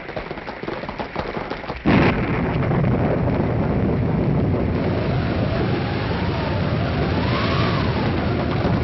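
Radio sound-effect thunderstorm: a sudden crash of thunder about two seconds in, after a patter of light clicks. A steady rumble of rain and wind follows, with a howl that rises and falls.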